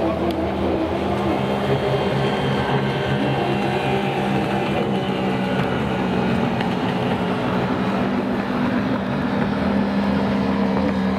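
Racing jet ski engine running hard at a steady, high pitch, one continuous drone with little change in revs.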